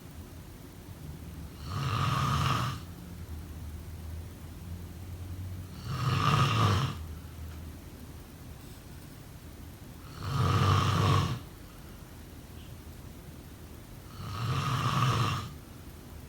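A person snoring in a slow, even rhythm: four loud snores of about a second each, one roughly every four seconds, with a faint low rumble of breath between them.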